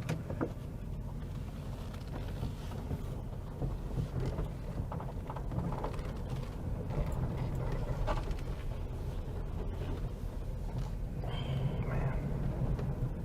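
The 2006 Ford E350's 5.4-litre V8 running at low speed, a steady low rumble with faint irregular ticking that sounds like exhaust manifold leaks.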